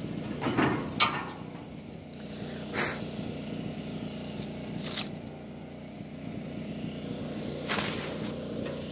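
Footsteps on dry leaves and grass: a few separate crunches, the sharpest about a second in, over a steady low hum.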